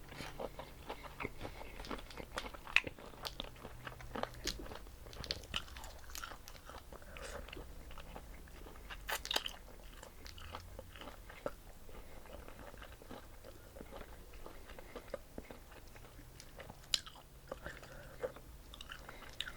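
A person eating a seafood boil close to the microphone: chewing, with many small irregular clicks and crackles and a few sharper snaps.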